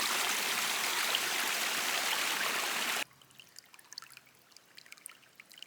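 A steady rushing hiss, like running water, that cuts off abruptly about three seconds in. Faint scattered ticks and crunches follow.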